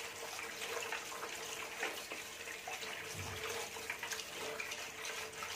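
Tap water running into a plastic strainer of poha (flattened rice) while a hand stirs the flakes, rinsing off the dust; a steady splashing.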